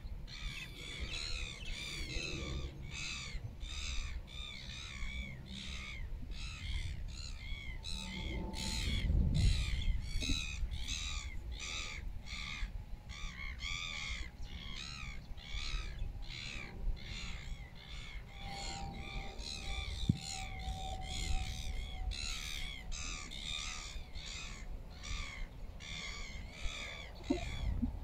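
Short, high, chirping animal calls repeated steadily about twice a second, over a low rumble of wind on the microphone that grows louder about nine seconds in.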